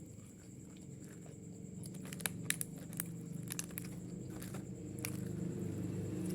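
Close-up chewing and crunching of food, with a cluster of sharp, crisp crunches around the middle.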